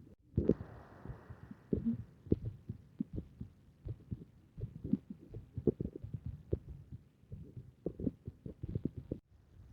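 Chest sounds heard through a stethoscope during lung auscultation: low, muffled breathing and heartbeat through the chest wall, broken by many short, irregular clicks. A breath swells in about half a second in, and the sound drops out briefly shortly before the end.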